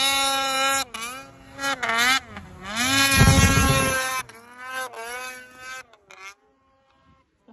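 Mountain snowmobile's two-stroke engine revving hard, its high whine rising and falling several times. A loud low rush breaks in about three seconds in as a sled blasts past close by spraying snow, and the sound drops away to near silence near the end.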